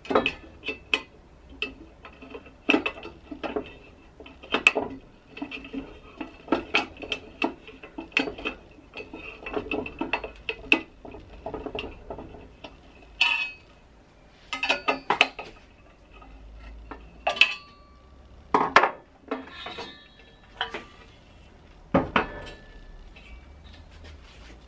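Metal clicks and clinks of a T-handle hex key turning the screw of an automatic fastening set inside an aluminium extrusion profile: quick runs of small ringing taps as the key works the fastener. In the second half come several louder, spaced knocks of metal on the aluminium frame and bed.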